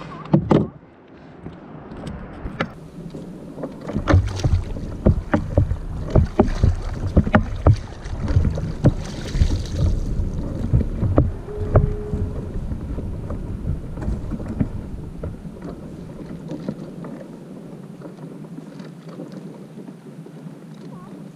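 Water splashing and sloshing at the side of a kayak as a freshly bled halibut is held and dipped over the side, with a busy run of sharp knocks and thuds against the hull in the middle, settling to quieter water lapping toward the end.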